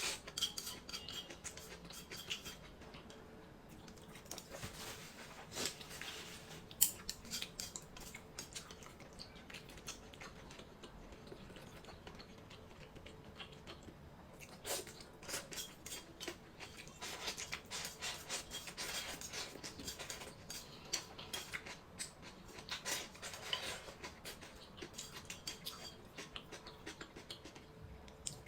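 Close-miked eating sounds: chewing, with irregular crisp clicks and scrapes of utensils against dishes, busier in a few stretches.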